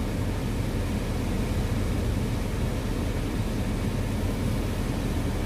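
Car idling, heard from inside the cabin: a steady low rumble under an even hiss.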